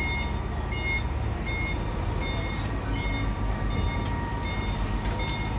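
Concrete pump truck's warning beeper sounding short, even beeps a little more than once a second, over the truck's engine running.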